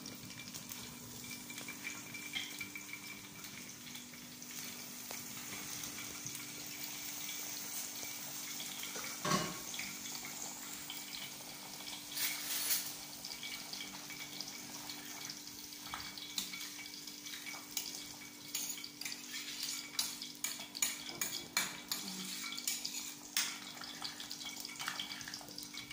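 A pot of taro boiling on a gas stove beside a pan of hot ghee, making a steady bubbling hiss. A sharp metal clank comes about nine seconds in, and a run of pot, lid and utensil clinks fills the last several seconds.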